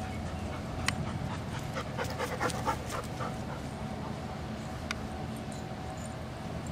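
A dog taking a run of quick, short breaths for about a second, a couple of seconds in, over a steady background hum. Two sharp ticks, near one second and near five seconds in.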